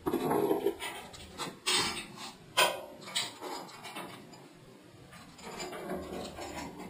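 Scattered metallic clicks and clanks of hand tools and steel lift parts as the ramp is bolted to its cross bar, with a burst of knocking at the start and several sharp clicks in the first three seconds, then quieter.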